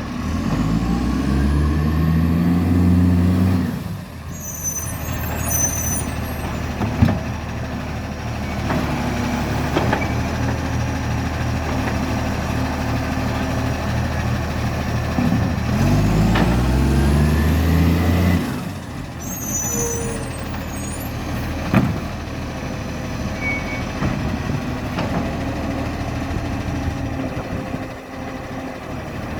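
Garbage truck diesel engine, with a very bad exhaust leak, revving up hard twice about fifteen seconds apart. Each rev-up drops away and is followed by a short air-brake hiss. Between them the engine runs steadily, with a couple of sharp knocks.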